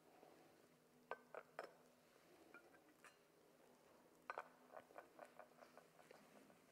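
Faint clinks of communion vessels being handled on the altar: three about a second in, then a quicker run of them between about four and five and a half seconds.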